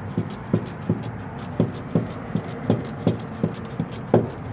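A steady series of short knocks, about two to three a second, each with a brief ring.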